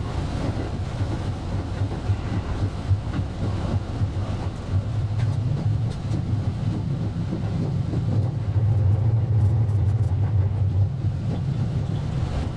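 Running noise of a JR West 223 series electric train heard from the front cab, sped up to four times speed: a steady low rumble that grows louder about two-thirds of the way through.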